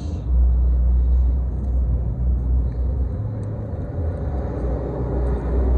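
Steady low rumble of a running engine, with a faint hum joining in about four seconds in.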